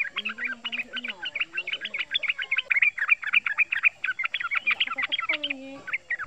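Male yellow-vented bulbul singing a fast, almost unbroken string of bubbling chirps. This is the rapid run ('ropel') song used as a lure to call other males.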